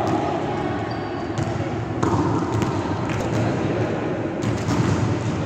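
Indoor volleyball being played: several sharp hits of the ball against hands and floor, echoing in a large gym hall, over a steady background of players' voices.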